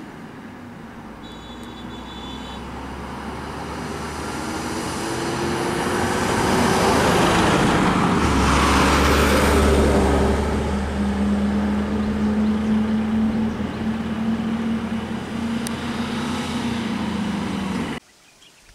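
A motor vehicle's engine and tyres growing louder as it approaches, loudest as it passes close about eight to ten seconds in, then a steady engine hum. The sound cuts off suddenly near the end.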